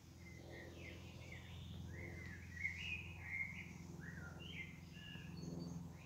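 A songbird singing, a run of quick chirping and warbling notes, over a low steady background hum.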